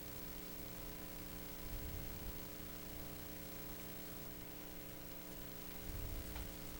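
Faint steady electrical hum over a soft hiss: room tone of the recording. Soft low rumbles rise briefly about two seconds in and again about six seconds in.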